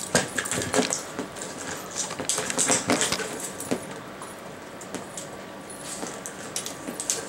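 Hard plastic IQ Treat Ball rattling as a dog noses and rolls it across a carpet, with treats shaking about inside it. It makes irregular clicks and clatters, in clusters, with quieter gaps between.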